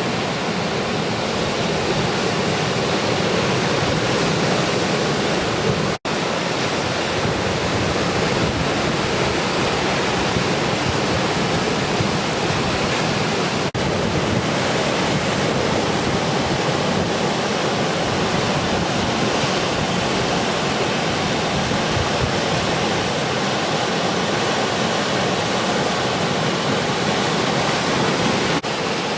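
Steady rush of ocean surf, with wind on the microphone. The sound drops out for an instant three times: about six seconds in, around fourteen seconds, and near the end.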